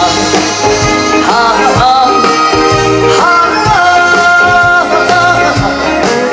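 Trot song performed live by a band, with a steady beat and long held melodic notes between the sung lines.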